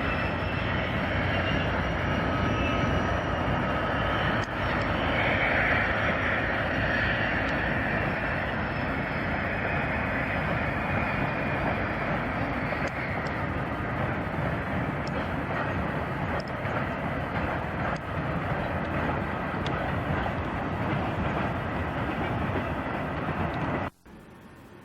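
A train running past on the railway: a steady, loud rush of noise with a faint high whine, cut off abruptly near the end.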